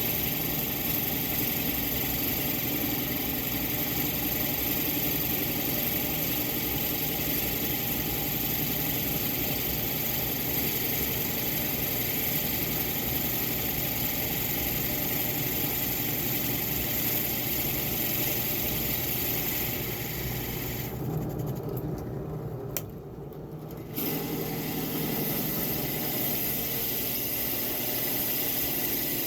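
An electric motor running steadily with a whirring hum and hiss. It goes briefly quieter about three quarters of the way through, with a single click, then resumes at full level.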